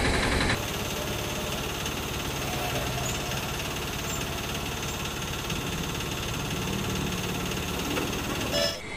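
A steady engine-like running noise with a fine low pulse, after a louder sound stops about half a second in; a short louder sound comes near the end.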